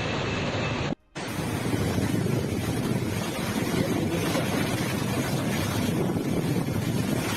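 Tropical cyclone wind blowing hard and buffeting the microphone in a steady rushing noise. There is a brief drop-out about a second in, where the footage cuts to another clip.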